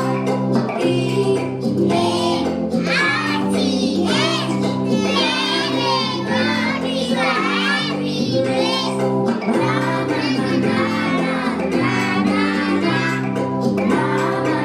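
A song about saving the Earth, with singing over a steady instrumental backing, playing for a dance performance.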